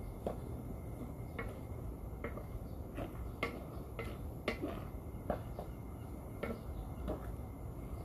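Chopped bopis meat being mixed by hand in a large aluminium basin. Irregular light clicks and scrapes against the metal come roughly every half-second to a second, over a steady low background hum.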